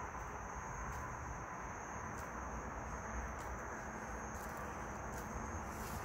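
Steady outdoor background with a low rumble and a thin, steady high-pitched whine, broken by faint short clicks about once a second.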